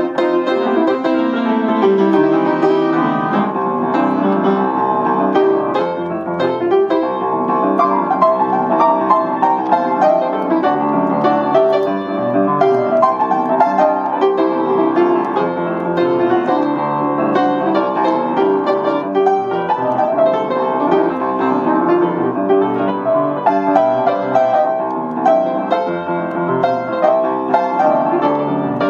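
Upright piano played continuously, a steady stream of notes and chords, picked up by the internal microphone of a Panasonic LX100 compact camera resting on top of the piano.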